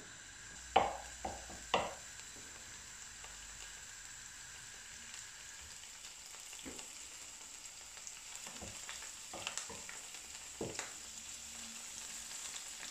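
Blanched dandelion greens sizzling low in hot oil in a non-stick frying pan. Two sharp clacks come about one and two seconds in, and softer knocks and stirring from a wooden spatula follow later.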